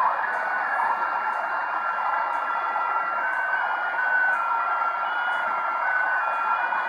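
Shortwave radio signal received on a Degen DE1103: a strange musical noise of several steady tones hopping between pitches every half second or so over steady static, which the listener takes to be almost like a jamming signal transmitted on SSB.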